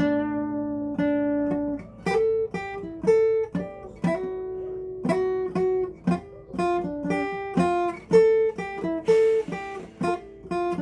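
Acoustic guitar playing a melody of single plucked notes and short strums.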